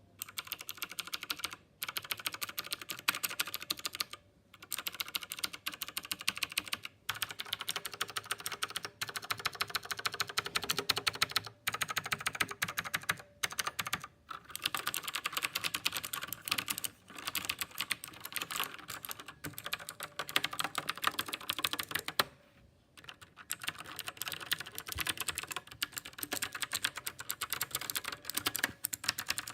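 Klim Domination mechanical keyboard with blue switches being typed on quickly: a dense run of clicky keystrokes broken by a few short pauses.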